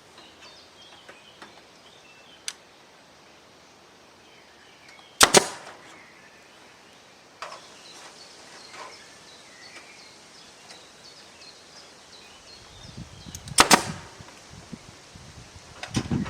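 Pneumatic staple gun firing twice, about 8 seconds apart, each shot a sharp snap, fastening netting to a wooden frame. Faint bird chirps sound in the background.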